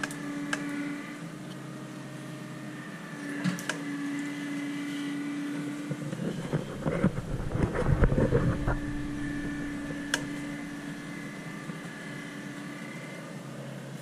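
A steady motor-like hum with a pitched drone that drops out briefly a few times, and a stretch of louder, uneven noise about six to nine seconds in.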